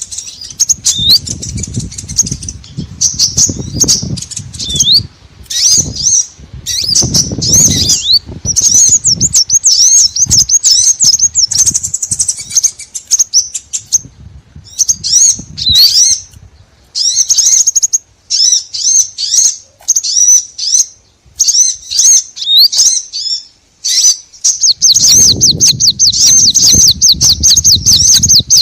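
Small songbirds calling: dense, quick high chirps and trilled phrases, breaking near the end into a fast, even run of repeated notes. A low rumbling noise comes in at times underneath.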